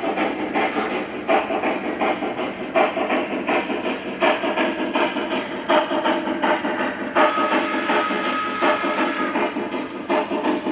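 O-gauge model steam locomotive running on the track, its sound system giving out a hissing, rhythmic chuff as the wheels click over the rails. About seven seconds in, a steady high tone sounds for about two seconds.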